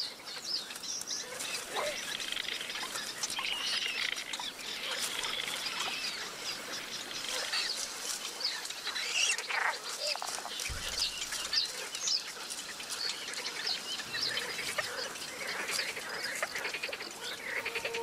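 Little bittern chicks begging at the nest: many short, high chirps and squeaks, scattered and overlapping. A brief low thump comes about halfway through.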